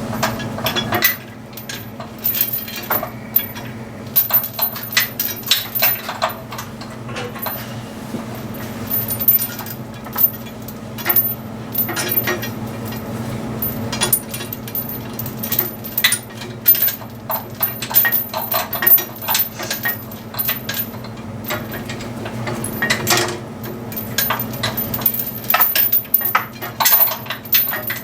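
Irregular metallic clinks and clatters of metal parts, chain and tools being handled, over a steady low hum.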